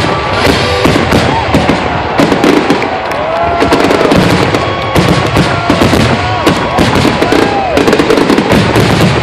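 A rapid barrage of fireworks shells bursting, bangs and crackle packed close together, the dense firing of a display's finale. Voices in the crowd rise and fall over it.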